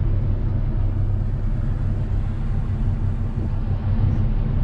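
Boat motor running under way, heard from inside the enclosed cabin: a steady low drone.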